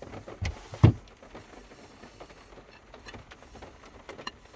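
Dishes being handled while drying up: two knocks of a plate near the start, then quieter rubbing and small clicks as the plate is wiped with a tea towel.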